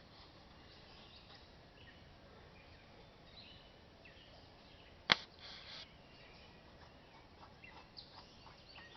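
Faint bird chirps over a quiet background, with one sharp click about five seconds in followed by a short hiss.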